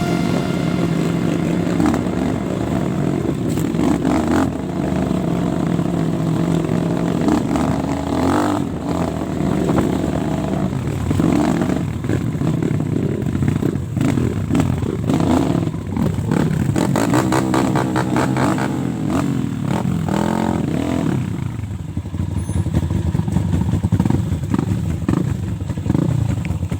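Trail motorcycle engines running and revving, the pitch rising and falling repeatedly, with rattling clatter over the engine sound.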